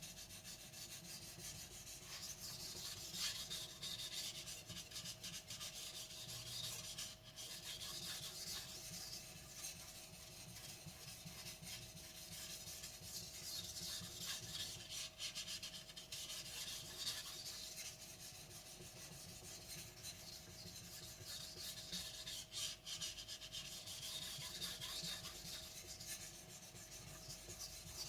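Blue carbon steel gyuto blade being stroked back and forth over a wet Naniwa whetstone: a continuous gritty scraping that swells and eases over several seconds at a time.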